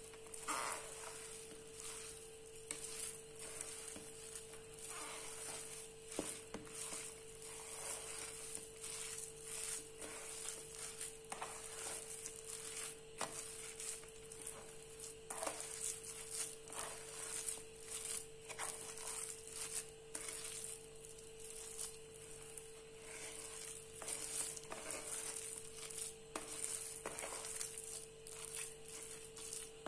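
Wet squelching and squishing of a hand kneading grated potato into thick chickpea-flour batter in a stainless steel bowl, in irregular, repeated strokes.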